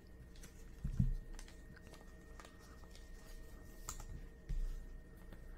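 Hands handling baseball cards: light clicks and taps of card stock, with a dull bump about a second in and another near the end, over a faint steady electrical hum.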